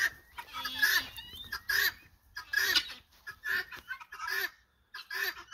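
Chickens clucking: a run of short, separate clucks, about two a second, with a brief lull near the end.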